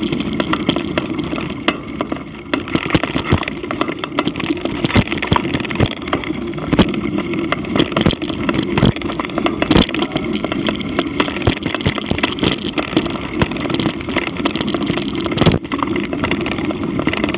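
Mountain bike ridden over dirt singletrack, heard through a bike-mounted action camera: a steady rumble of tyres and rushing air, with frequent clicks, rattles and knocks as the bike goes over bumps.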